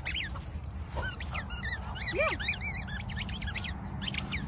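Squeaky ball toy squeaking over and over as a dog chews it in its mouth, in quick, high-pitched squeaks of rising and falling pitch.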